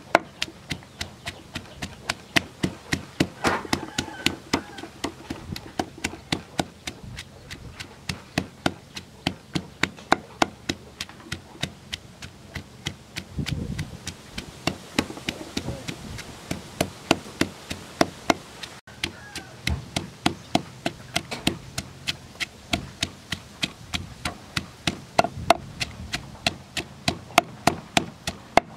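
Wooden pestle pounding garlic, shallots and red chilies in a wooden mortar: a steady run of quick knocks, about three strokes a second, crushing the aromatics.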